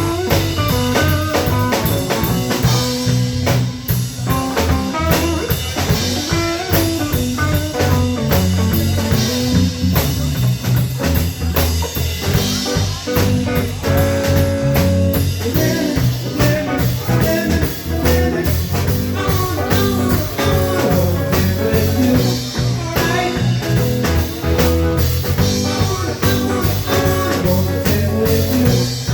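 Live band jamming instrumentally: electric guitar over bass and a drum kit, in a bluesy groove.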